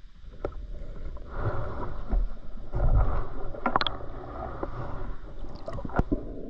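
Water sloshing and splashing in dull, low swells, loudest about halfway through, with a few sharp clicks.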